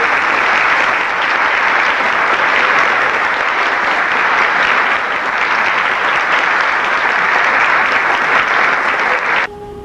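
Theatre audience applauding at the end of a choir's piece: steady clapping that cuts off abruptly near the end.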